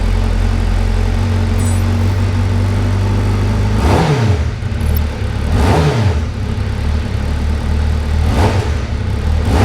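Honda CBR1000RR-R Fireblade SP's 1000cc inline-four engine idling, blipped three times: two sharp revs and a smaller one near the end.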